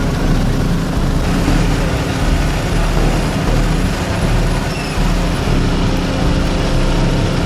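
Steady, loud low rumbling noise with the hum of an engine running under it.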